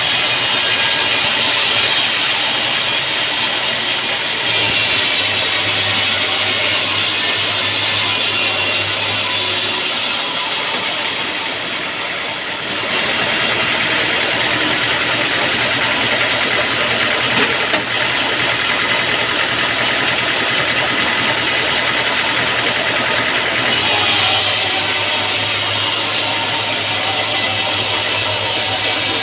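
Sawmill machinery running steadily on an engine, changing slightly a few times.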